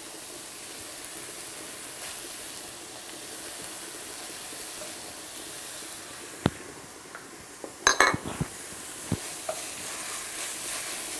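Minced lamb sizzling as it fries in a stainless steel pan, stirred with a wooden spoon. A few sharp knocks of utensil on pan come through, a cluster of them about eight seconds in.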